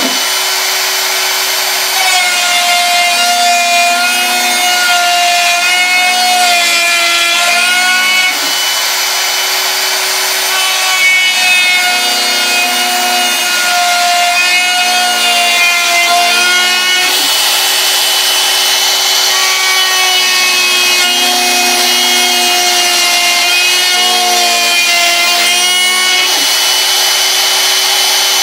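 Bosch Colt trim router on a CNC machine milling a bamboo board with a two-flute bit: a steady high motor whine over the rasp of cutting, its pitch wavering as the bit moves through the wood. Lower tones from the machine's stepper motors change in steps underneath.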